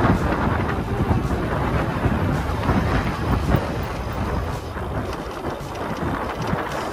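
Wind buffeting the microphone, with the rumble and rattle of a mountain bike riding over a rough dirt single-track trail.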